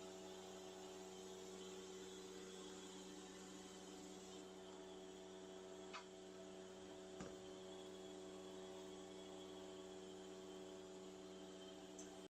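Faint steady electrical hum, almost at silence, with two faint clicks about six and seven seconds in.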